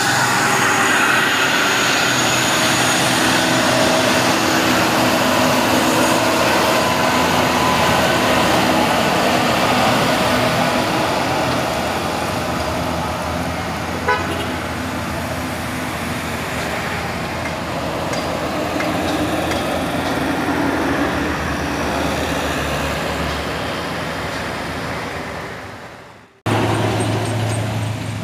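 Heavy diesel trucks, a Mitsubishi Fuso Fighter and a Hino box truck among them, labouring up a steep climb with a vehicle horn tooting. The engine sound is loud for the first ten seconds or so, then slowly fades. It cuts off abruptly about four-fifths of the way through, and a steadier low engine drone takes over.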